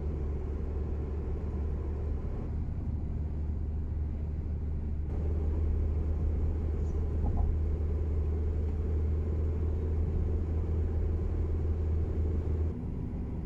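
Steady low rumble of a car driving at highway speed, road and engine noise with small jumps in level a few times.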